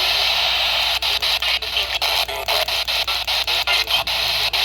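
Radio static: a steady hiss from a weakly received broadcast, breaking up with many brief, irregular dropouts from about a second in.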